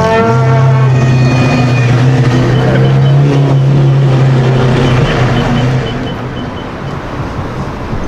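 Lamborghini Aventador SVJ's naturally aspirated V12 running at steady low revs as the car pulls away: an even, low drone that fades out about six seconds in, leaving street noise.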